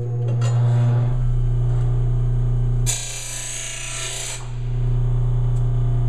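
Blade grinder motor running with a steady hum. About three seconds in, a Honda lawn mower blade is pressed against the spinning grinding wheel for a test cut: a harsh grinding hiss of steel on the wheel lasting about a second and a half, then the motor runs on alone.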